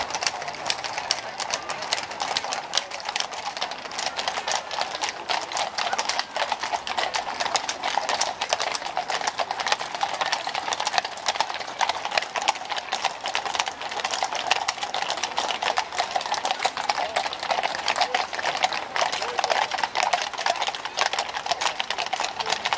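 Hooves of a column of ridden horses clip-clopping at a walk on asphalt, many overlapping steps in an irregular patter, with onlookers talking underneath.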